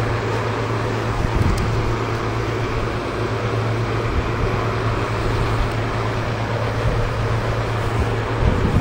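Late-1960s Hunter model 11027 seven-blade, two-speed box fan running, a steady rush of air over a constant low motor hum.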